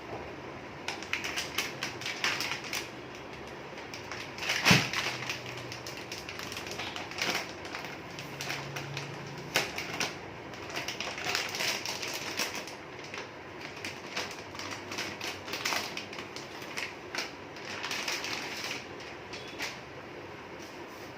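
Clicks, rattles and crinkling of packaging being handled, as a computer part is unpacked from its box, with one louder knock about five seconds in.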